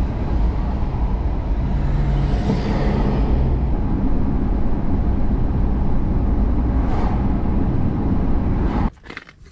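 Road noise inside a moving car: a steady low rumble of engine and tyres, which cuts off abruptly near the end, followed by a sharp click.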